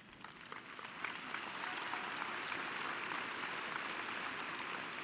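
Large audience applauding, swelling over the first second or two and then holding steady.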